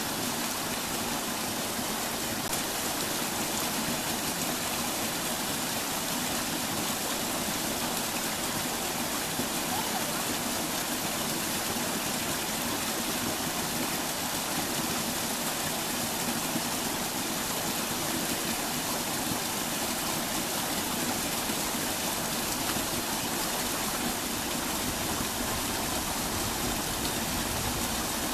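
Small woodland brook spilling over a short drop: a steady, even rushing of water.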